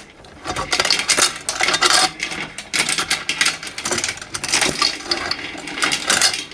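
Steel load chain of a 3-ton chain hoist rattling and clinking as it is worked during a demonstration: an irregular run of metal-on-metal clinks and knocks.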